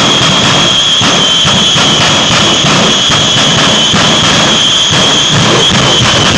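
Two jet trucks' turbine engines running at the start line with afterburners lit: a loud, steady rush with a high whine over it.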